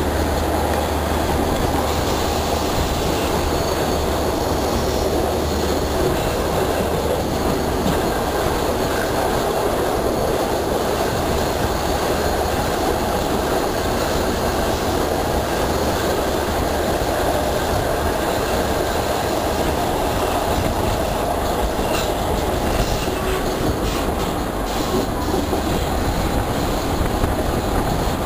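Passenger train running along the track, heard from an open window: a steady rumble of steel wheels on the rails over a low hum.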